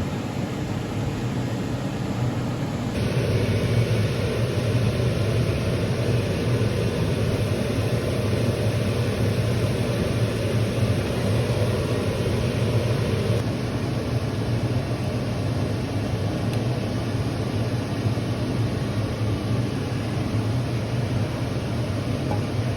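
Steady low rumble and hiss of a moving vehicle, shifting slightly in tone about three seconds in and again about thirteen seconds in.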